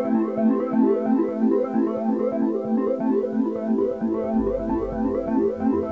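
Background music: a bright synthesizer keyboard tune of quick repeated notes, about four a second, with a low bass line coming in about four seconds in.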